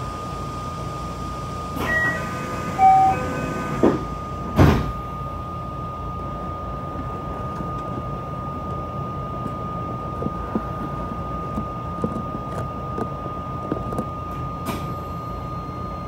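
Electric commuter train (JR West 227 series) standing at a station with its doors closing: a few short electronic chime tones about two seconds in, then the doors shut with a loud thud about four and a half seconds in. After that the train's electrical equipment runs with a steady hum and a continuous high whine, with occasional light clicks.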